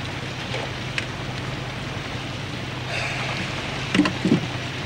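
Car engine running at a steady drone under rain and wet-road hiss, with a short louder sound near the end.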